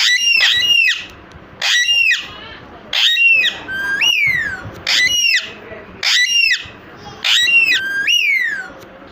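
Pet parrots screeching loudly over and over, about ten harsh calls, several in quick pairs, mixed with a few whistles that rise and then fall away.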